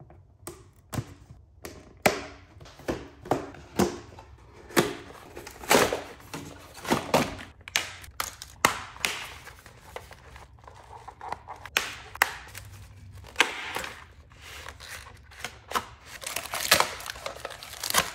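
Doll-box packaging being opened by hand: scissors snipping the plastic window and cardboard, with cardboard tearing and plastic crinkling. The snips and rustles come in an irregular string and grow busier near the end.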